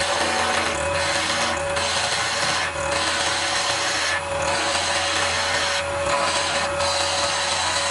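Wood lathe running with a steady hum while a chisel cuts a spinning hardwood pen blank, giving a continuous rasping hiss of shavings. The hiss breaks off briefly about six times.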